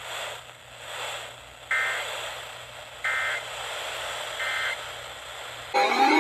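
Weather radio hiss broken by three short digital data bursts about 1.3 s apart: the EAS/SAME end-of-message code closing the broadcast warning. Near the end a loud rising siren wail begins.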